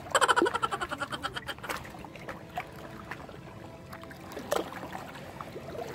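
Small spinning reel being cranked, a rapid even whirring clatter for about the first second and a half, then softer water sounds with a faint steady hum.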